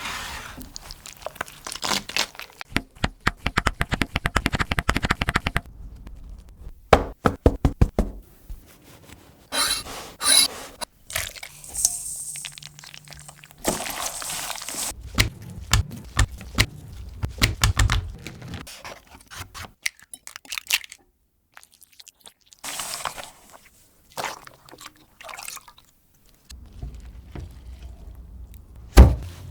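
Kitchen cooking sounds: runs of quick, sharp knocks and taps, with stretches of liquid being poured and dripping, and a loud single knock near the end.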